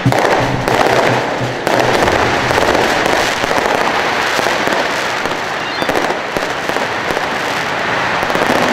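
Firecrackers and fireworks going off in a loud, dense barrage of rapid crackling bangs that starts suddenly and does not let up.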